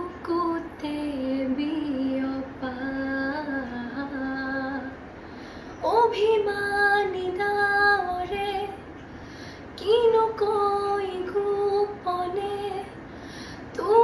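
A young girl singing solo and unaccompanied, in slow phrases of long held notes. The first phrase is low; from about six seconds in, two higher phrases follow.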